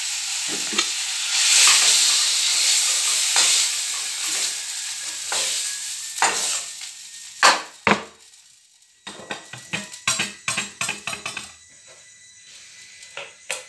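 Food sizzling and frying in hot oil in a pan. The sizzle is loudest in the first few seconds and dies away by about eight seconds in. It is followed by a run of quick sharp clicks and taps.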